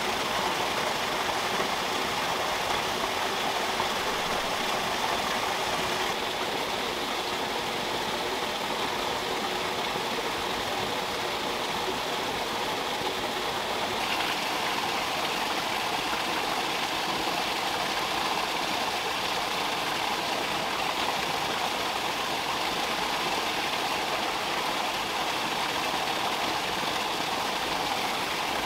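Shallow water running steadily through a small pond channel, a continuous rushing stream sound.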